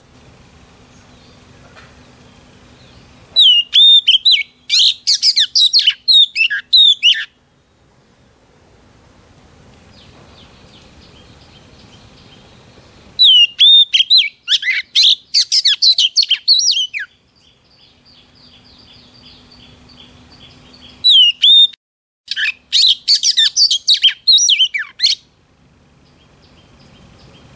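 Oriental magpie-robin, the female the video is about, singing three loud bursts of rapid whistled notes and swooping glides, each about four seconds long, with pauses of several seconds between them.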